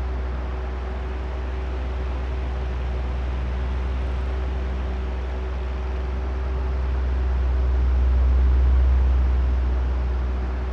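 Oscillating electric fan running: a steady low motor hum with a faint whine over the rush of air. It swells slowly as the fan head turns toward the microphones, loudest about eight seconds in, then fades again.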